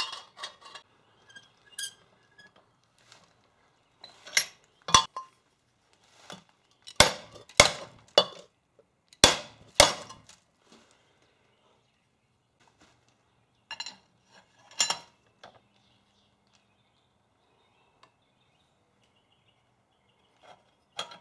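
Metallic clanks and hammer strikes on a steel exhaust pipe being forced into shape to fit a flange. They come as scattered single knocks with a short ring, a run of louder blows a few seconds in, and a pair more about two-thirds of the way through.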